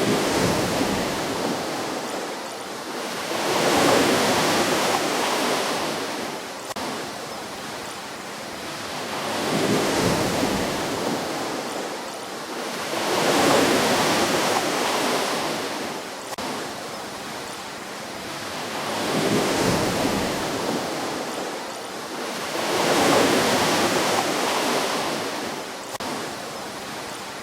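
Ocean waves breaking on a shore and washing back, a noisy hiss that swells and fades in surges every few seconds, about six times.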